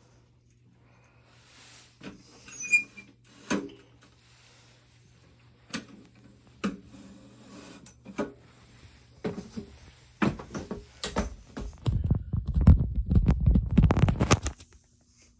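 Scattered clicks and knocks of handling, over a faint low hum that stops about ten seconds in. Then a dense run of thuds and rattling lasts about four seconds and is the loudest part.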